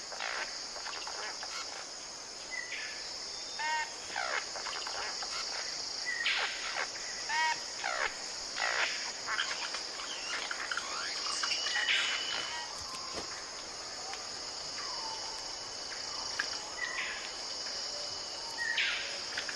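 Forest ambience: a steady high insect drone with bird calls over it. Short downward-sweeping whistles come every few seconds, and a quick run of ringing notes comes three times in the first half.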